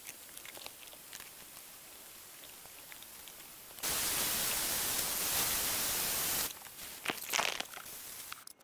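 Loud, even hiss for nearly three seconds, starting and stopping abruptly, over a fainter steady hiss, as a wooden hatchet handle is branded with a hot branding iron.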